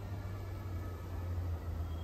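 Steady low background hum, with faint thin high whistling notes around the middle.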